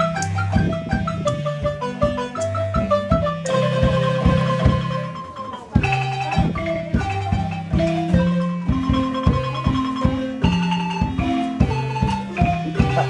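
Marimba music: a quick melody of short struck notes over a low bass line, with a steady beat. It breaks off briefly about six seconds in and picks up again.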